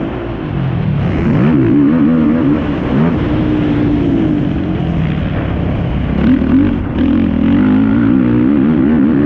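Yamaha YFZ450R quad's single-cylinder four-stroke engine under hard racing throttle, its pitch rising and falling as it revs up and backs off, with a brief dip near the start.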